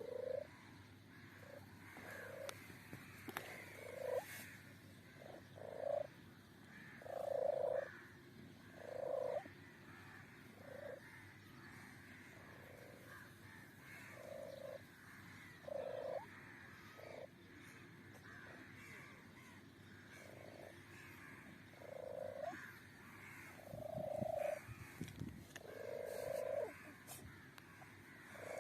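A kitten making short calls over and over, one every second or two.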